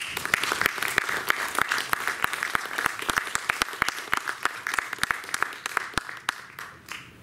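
Audience applauding: a dense patter of hand claps that starts all at once, thins out about six seconds in and dies away near the end.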